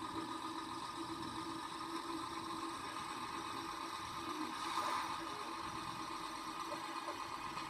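Simulated diesel engine sound from the DCC sound decoder of a Viessmann Plasser track-tamper model, running steadily through the model's small speaker. There is a brief louder swell about five seconds in.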